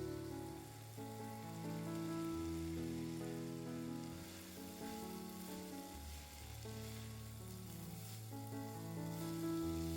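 Background music of slow held chords over a steady sizzle of food frying in a pan.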